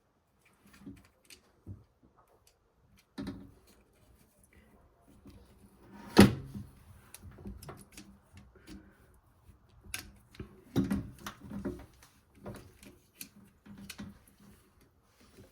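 Scattered clicks, knocks and rattles of hand work on a washing machine's motor, around the removal and refitting of its carbon brushes, with one sharp knock about six seconds in and a cluster of knocks a few seconds later.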